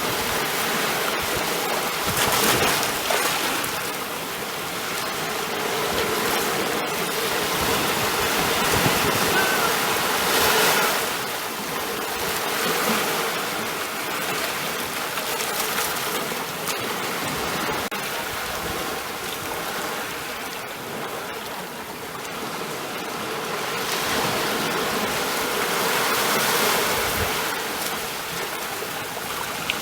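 Ocean surf: a continuous wash of breaking waves that swells and eases every several seconds.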